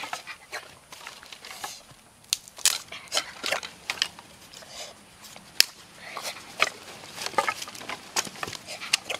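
Dry wooden sticks being gathered and laid in a pile on the forest floor, with irregular clacks of wood on wood and crackling of twigs and dry leaves.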